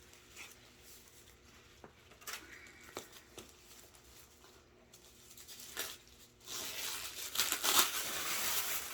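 Packaging being handled and opened: light rustles and taps, then from about six and a half seconds in, a loud stretch of tearing and crinkling.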